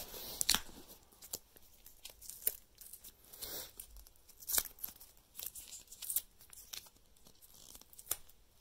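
Close handling noise: scattered rustles, scrapes and light clicks as hands work the phones and a charging cable on a bedsheet, right next to the microphone.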